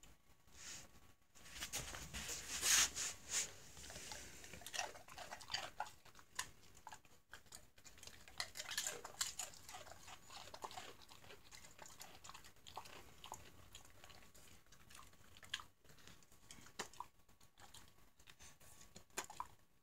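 Treeing Walker Coonhound chewing a potato chip, with crunching and wet slurping. It is busiest in the first few seconds and again near the middle, then thins to scattered smacks.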